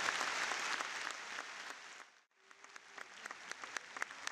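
Audience applauding. The dense clapping fades and cuts out briefly about halfway, then comes back as thinner, scattered claps.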